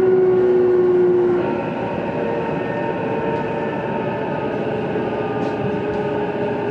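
JR East E233-2000 series electric train running, heard from inside the car, with the whine of its Mitsubishi IGBT VVVF inverter and traction motors, a car known for louder motor noise than others of its type. A loud, slowly falling whine stops about a second and a half in, and a quieter run with fainter steady whines and rail noise follows.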